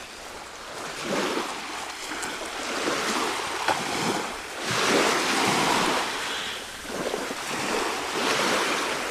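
Small waves of the Aegean Sea washing up a pebble beach, the surf swelling and fading every couple of seconds.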